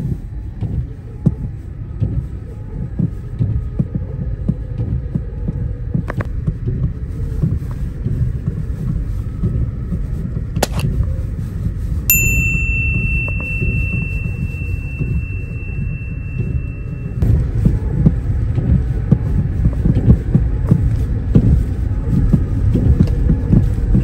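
Toyota Tacoma pickup driving slowly over a snowy trail, heard from inside the cab: a steady low rumble of engine and tyres with many small knocks and bumps. A sharp click comes about ten seconds in, then a high steady beep holds for about five seconds.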